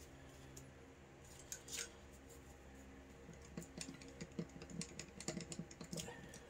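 Faint, irregular light clicks and taps, a couple early and then a denser scatter of them in the second half.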